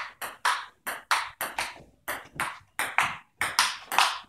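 Table tennis rally: the celluloid ball clicking off the paddles and the table in a quick, steady run of about three hits a second.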